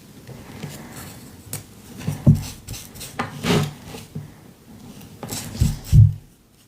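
Close hand-work sounds of gluing small pieces of dictionary-page paper onto a canvas with a paintbrush: irregular rubbing and rustling, with several soft knocks spread through.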